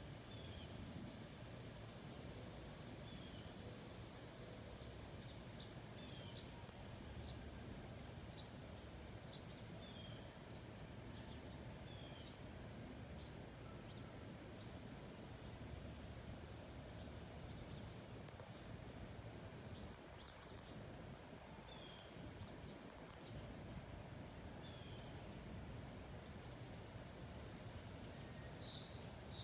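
Insects trilling: a steady, continuous high-pitched buzz with a regular short chirp repeating a little faster than once a second, and a few short falling notes scattered through. A faint low rumble sits underneath.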